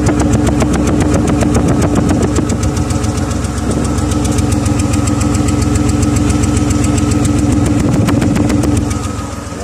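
BMW E36's M50 straight-six idling with a misfire, with a rapid ticking over a steady drone. The owner puts the misfire down to the spark plugs rather than the coil packs.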